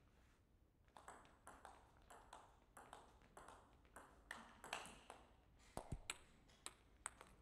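A table tennis rally: the celluloid-type plastic ball clicks back and forth off the paddles and the table, about two to three light clicks a second. The clicks start about a second in and stop near the end. A dull thud comes about six seconds in.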